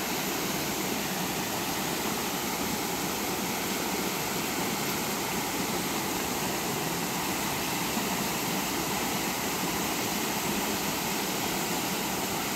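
Steady rushing of flowing river water, an even unbroken noise.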